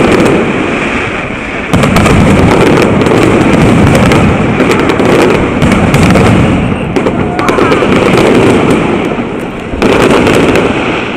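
Fireworks display going off: a dense, continuous barrage of bangs and crackle, with fresh loud volleys breaking in suddenly about two seconds in and again near the end.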